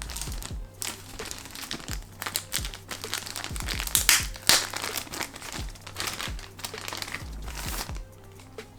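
Packaging crinkling and rustling as a boxed figure is unwrapped, loudest about halfway through, over background music with a steady beat.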